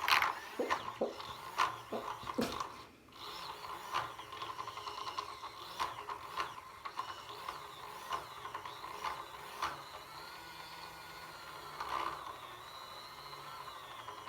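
Mini battery-powered makeup brush washing machine running, its small motor whining steadily while the brush knocks and rattles irregularly against the spinning bowl. The knocks are thickest in the first few seconds.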